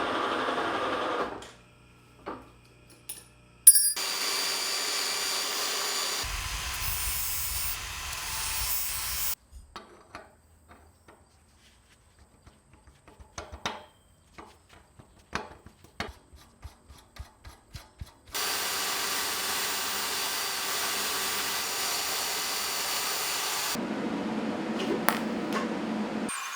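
Electric drill running and boring holes through a steel plate clamped in a vise, in two long runs, the first taking on a heavier low note partway through as the bit bites. Between the runs come scattered metallic clicks and knocks of the work being handled.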